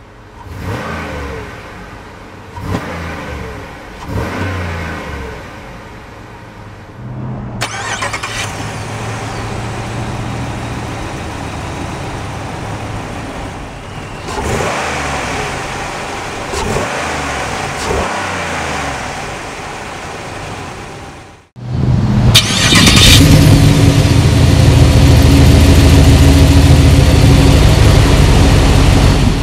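2008 Buick LaCrosse Super's 5.3-litre small-block V8 running and being revved, its pitch rising and falling. About two-thirds of the way through it becomes much louder and steadier, heard from the dual exhaust tips.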